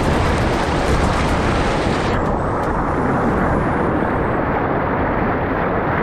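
Loud, steady rushing of a fast meltwater stream tumbling over logs and rocks close to the microphone. About two seconds in, the hiss abruptly loses its top end and leaves a duller, lower rush.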